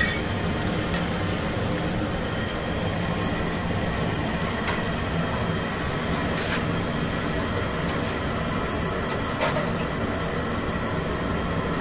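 Mysore bondas deep-frying in a large iron kadai of hot oil: a steady rumbling hiss, with a few sharp clicks of the metal slotted ladle against the pan.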